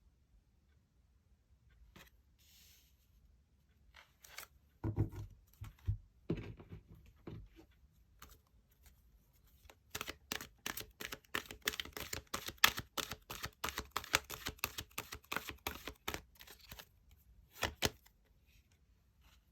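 Tarot cards being handled and shuffled: a few soft knocks, then about seven seconds of rapid, dense card clicks, and one sharp snap near the end.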